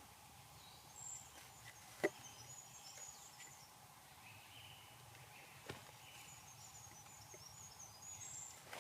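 Quiet woodland ambience with small birds chirping faintly in short high calls, and two light, sharp knocks, about two seconds in and near six seconds in.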